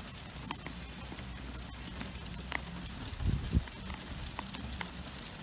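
Small hail mixed with snow falling on a deck and tabletop: a steady hiss of many fine, scattered ticks. A brief low rumble on the microphone comes a little after three seconds in.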